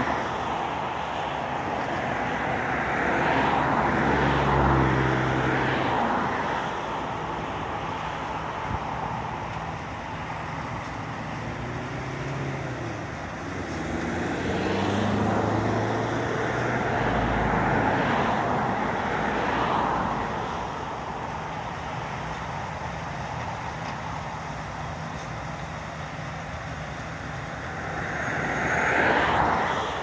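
Road traffic passing close by: vehicles swell up and fade away one after another, about five times, the loudest early on and near the end, over a steady background rumble.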